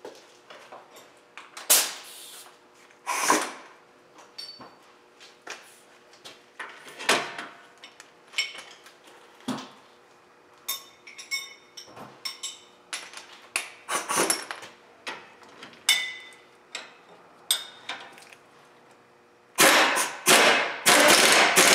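Metal tools clanking and clicking against the steel strut bracket and bolts as the lower strut-to-knuckle bolts are worked and tightened, some hits ringing briefly. Near the end a pneumatic tool starts up, first in short bursts and then running steadily.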